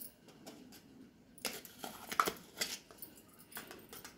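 Light taps, clinks and rustles of hands handling spice containers and utensils at a steel mixing bowl, clustered between about one and a half and three seconds in.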